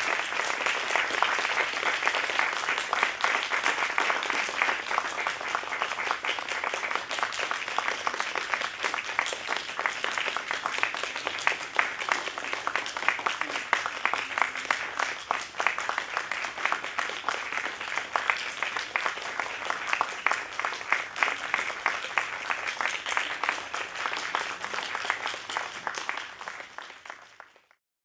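Audience applauding, a dense steady clatter of many hands clapping, fading out near the end.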